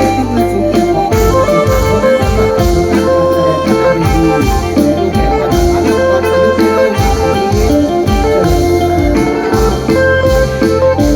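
Live mor lam sing band playing instrumental music without vocals: a reedy, organ-like lead melody over a heavy bass line and a steady drum beat.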